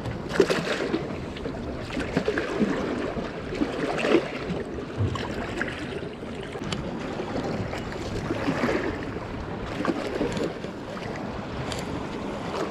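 Sea water lapping and sloshing against a wharf's steps, with wind buffeting the microphone and scattered small knocks.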